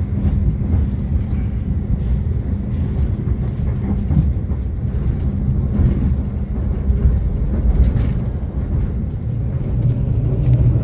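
Passenger carriage of the Argo Wilis express train running at about 50 km/h, heard from inside the cabin: a steady low rumble of wheels on the rails, with a few light clicks near the end.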